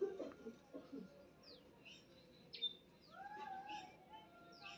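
Kitten meowing, with one drawn-out mew that rises and falls about three seconds in. Small birds chirp in short, high, falling notes.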